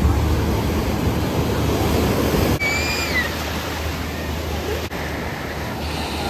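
Ocean surf breaking and washing onto the beach, a steady loud rush of noise with a low rumble. About three seconds in, a short high gliding cry sounds over it.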